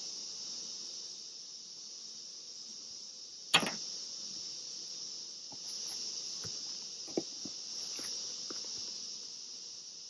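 Steady high-pitched chirring of an insect chorus. A single sharp knock about three and a half seconds in, and a few lighter taps later on, as the hive box and gear are handled.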